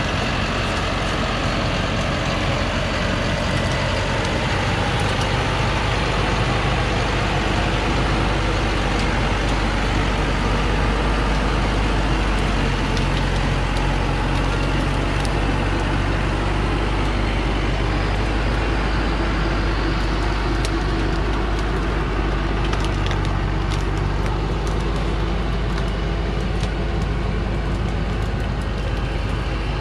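Diesel engine of a heavily loaded Thaco Foland truck running steadily under load as the truck works its way out of sandy mud on a forest track, its pitch shifting a little about twelve seconds in. A few sharp crackles come about two-thirds of the way through.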